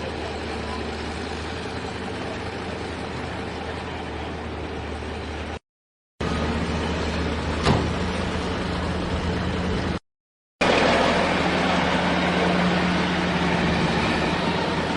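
Vehicle engine running steadily at a low, even pitch, broken twice by abrupt moments of silence where the sound cuts out. There is a single sharp click about eight seconds in.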